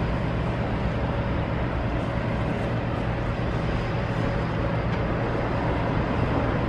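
Diesel engines of heavy demolition machinery, a high-reach excavator among them, running steadily with a low drone and a faint steady whine over it.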